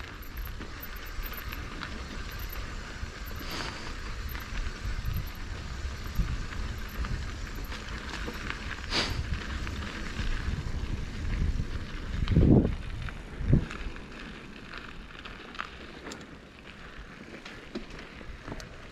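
Mountain bike rolling down a dirt trail: a steady low rumble of tyres on dirt with small rattles and clicks, and two heavy thuds about twelve and thirteen seconds in.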